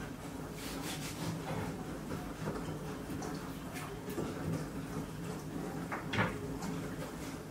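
Knife cutting an apple on a wooden cutting board, with short knocks as the pieces are dropped into a terracotta bowl, the loudest about six seconds in, over a steady low room hum.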